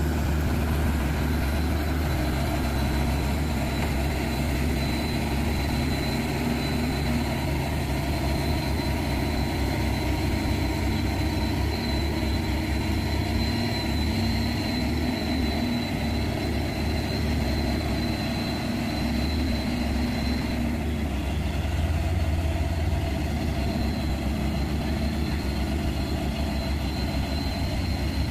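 Heavy truck's diesel engine running steadily at low revs as the truck crawls slowly through deep mud.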